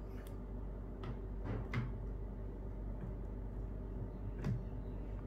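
A few faint taps and clicks of smartphones being handled and set down among other phones on a table, over a steady low hum.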